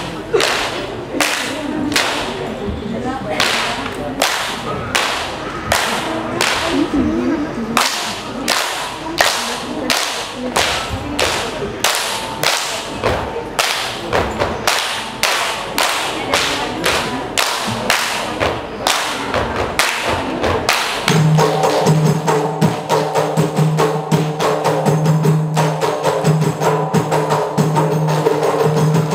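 Ratoh Jaroe dancers' body percussion: sharp hand claps and slaps struck in unison at about two a second, with a voice singing under them. About two-thirds of the way in, a steady held tone joins and the strokes come faster.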